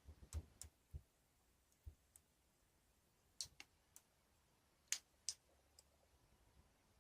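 Slime being handled by hand: a few faint, scattered clicks and small pops, with some soft low thumps in the first two seconds.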